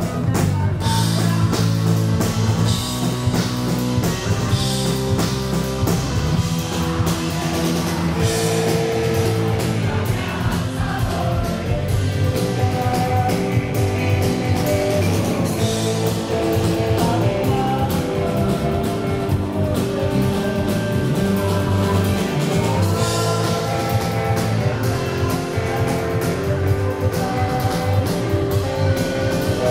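Live rock band playing: electric guitars, bass and drum kit, loud and steady.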